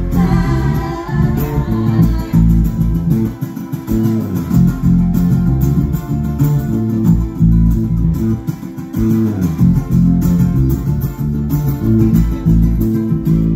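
Live band music played through a PA: acoustic guitars strumming and picking in an instrumental passage over a heavy low end, with a sung phrase in the first couple of seconds.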